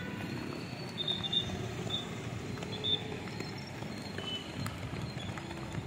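Footsteps of a large group of runners on an asphalt road: a steady patter of many feet, with a few short high chirps in the first half.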